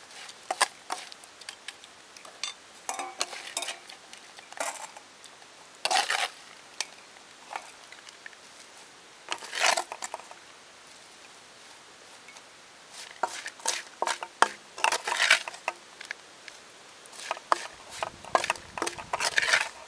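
Metal spatula scraping the steel of a wok and tipping cooked June beetles into a metal bowl: irregular scrapes and clatters of the hard-shelled beetles against metal, with a quiet pause in the middle.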